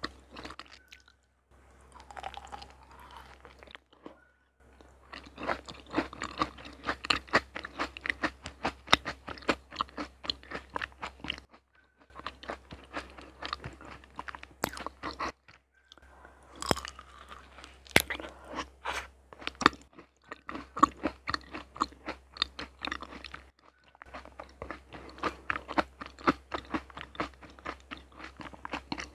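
Close-up chewing of raw honeycomb: dense clicking and crunching mouth sounds in several long runs, broken by short pauses between bites.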